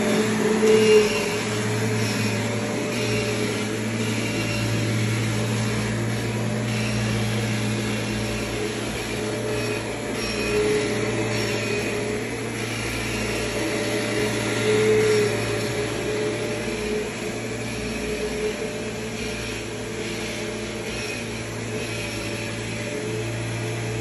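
Upright vacuum cleaner running steadily while pushed back and forth over carpet, a constant motor hum with a low drone.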